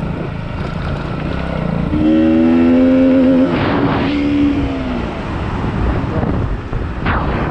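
Motorcycle engine running as the bike is ridden along, with wind noise on the microphone. About two seconds in, a loud steady pitched tone sounds over it for about a second and a half, then trails on a little lower before fading.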